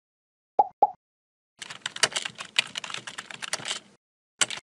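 Computer keyboard typing, a quick run of key clicks for about two seconds as text is typed into a search bar, then one more short click near the end. Two short blips come first, about half a second in.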